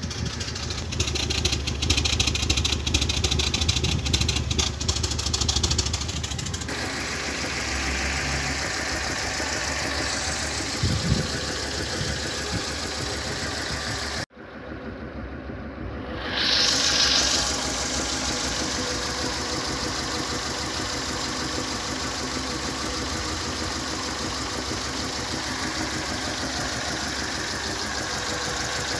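Fiat Grande Punto petrol engine idling roughly and misfiring, with an uneven puffing at the tailpipe. About halfway through the sound cuts to a closer recording of the same running engine from the engine bay. The misfire comes from a burnt valve: the engine is running on fewer than all its cylinders.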